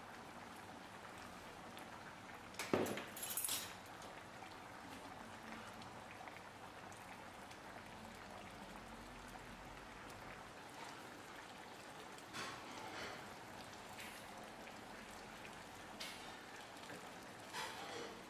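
Coconut-milk curry simmering in a pan, with a steady patter of bubbling. A few louder knocks and scrapes, the loudest about three seconds in, come from the ladle against the pan as the curry is stirred.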